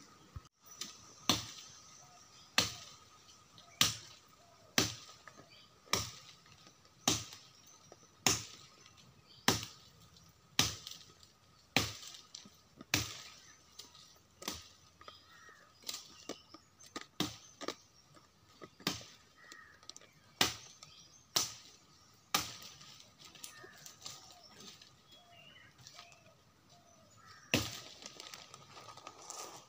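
A series of sharp cracks repeating almost evenly, about one a second, over a faint steady high tone.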